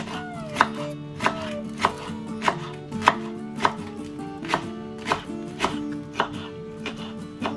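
Chef's knife chopping spring onions on a wooden cutting board: a steady run of crisp knocks, one about every two-thirds of a second, each cut slicing through the stalks into the wood. Background music plays underneath.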